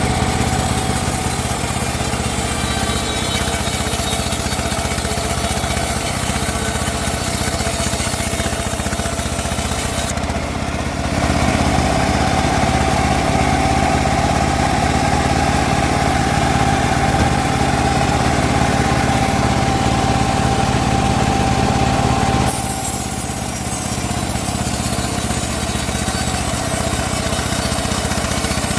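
A homemade bandsaw runs steadily throughout. For about eleven seconds in the middle it gets louder, with a steady high whine, as the blade saws through teak.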